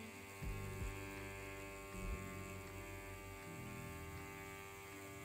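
BRONC Magic wireless rotary tattoo pen running at 7 volts, a steady motor hum, with a few soft low thuds in the first couple of seconds.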